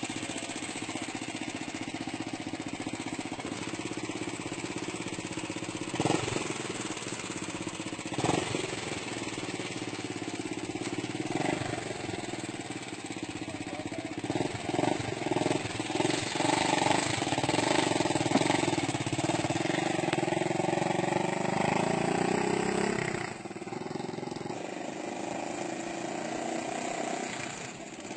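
Small motorcycle-type engine of a homemade plane-shaped road vehicle running. Its pitch and loudness climb through the second half as it pulls away, then fall off suddenly near the end. Two sharp knocks come in the first third.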